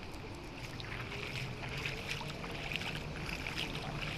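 Footsteps splashing and wading through shallow floodwater on a street, in quick irregular splashes that grow busier after about a second, over a faint low hum.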